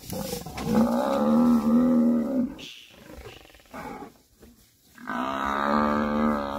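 Cape buffalo bellowing in distress while lions attack it: two long, drawn-out calls, the second starting about five seconds in.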